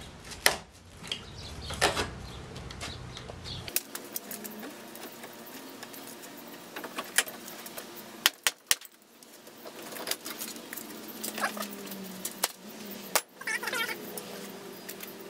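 Scattered clicks, taps and knocks of a wooden framing strip and a clamp being handled and fitted into a trailer's wooden wall frame, with a few sharper knocks around the middle.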